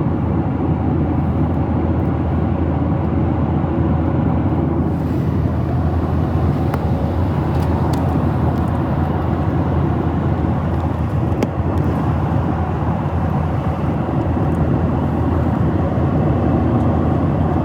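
Steady low rumble of a Boeing 737-800's engines and airflow heard from inside the passenger cabin, with a few faint clicks.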